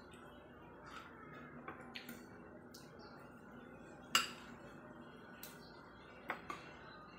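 Metal spoon and fork clinking against a ceramic plate: a few scattered light clinks, with one louder clink about four seconds in.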